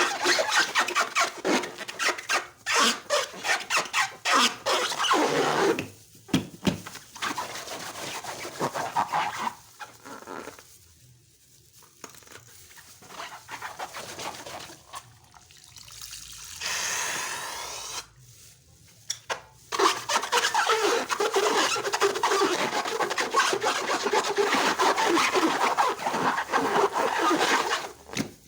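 Slime being kneaded and stretched by hand, giving dense sticky crackling and squelching with many tiny pops. It goes quieter and patchier for several seconds in the middle, with a short hiss, then returns full and continuous.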